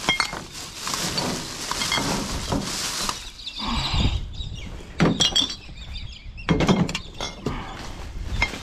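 Rubbish being handled in a dumpster: bags rustling for a few seconds, then glass bottles and other items knocking with several dull thuds.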